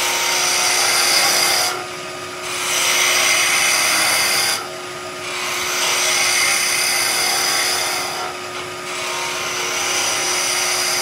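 Skew chisel cutting a tulipwood spindle turning on a wood lathe: a steady hiss of shavings being peeled off in four passes with short breaks between, as the leg is tapered down. The lathe's faint steady hum runs beneath.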